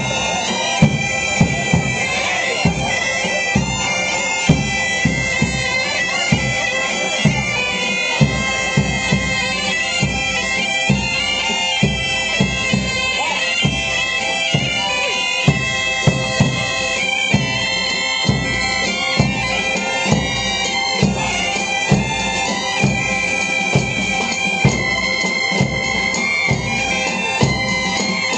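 A band of gaitas (northern Spanish bagpipes) playing a folk tune over their steady drone, with drums striking the beat about once or twice a second.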